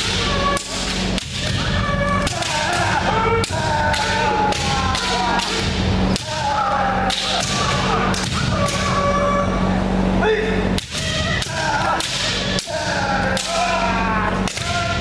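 Many kendo players sparring at once: rapid cracks of bamboo shinai striking armour and each other, thuds of bare feet stamping on a wooden floor, and drawn-out kiai shouts from several fighters, all echoing in a large hall.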